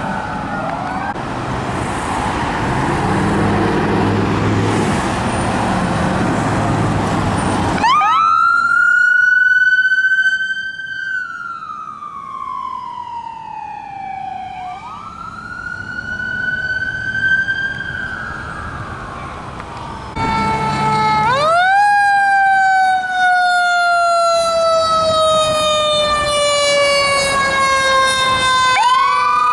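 Fire apparatus sirens wailing on an emergency run. At first they sit faintly under the noise of passing traffic. About eight seconds in, a single siren sweeps slowly up and down. From about twenty-one seconds, a siren jumps up in pitch and falls slowly, sounding two pitches at once.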